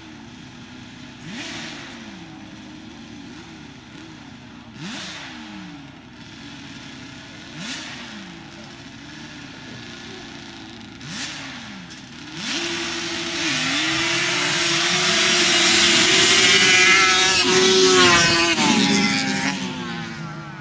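Engines of two sand-drag racing quads blipping the throttle at the start line, a short rising-and-falling rev about every three seconds. About twelve seconds in they launch and run flat out at high revs, getting louder as they come past near the end, where the pitch drops and the sound fades away.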